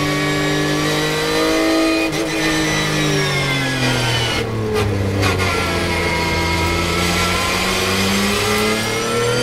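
Porsche 911 GT3 Cup race car's flat-six engine heard from inside the cockpit, in third gear. The revs climb to a high pitch, fall steadily as the car slows for a corner with a short lift about halfway through, stay low, then build again near the end as it accelerates out.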